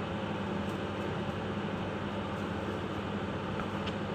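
Steady machine hum with an even hiss from a running appliance.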